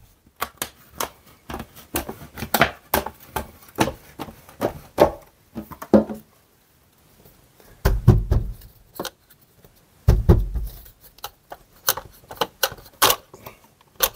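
Flat glazing knife prying and tapping the glazing beads out of a double-glazed window frame: a run of sharp, irregular clicks and knocks, with two heavier thuds about eight and ten seconds in.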